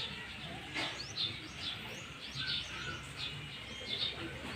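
Small birds chirping: many short, quick notes repeated throughout, over low background noise, with one sharp click about a second in.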